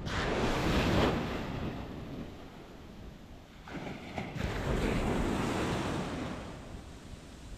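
Sea waves breaking and washing up on a sandy beach, the rush of surf swelling twice, at the start and again about four seconds in, with some wind on the microphone.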